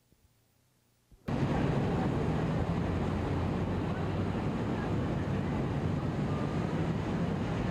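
Near silence with a couple of faint clicks, then about a second in a steady street background starts abruptly: a low rumble of traffic noise.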